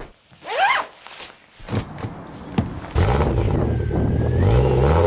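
A short rising sound, then two sharp knocks, then an off-road 4x4's engine catches about three seconds in and runs steadily with small changes in pitch.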